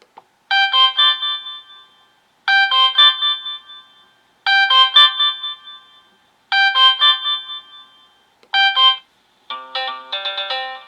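Sonim XP6 stock ringtone playing: a short, bright melodic phrase that repeats every two seconds, four times, and is cut off partway through a fifth. About half a second later a different ringtone starts, a quicker run of notes.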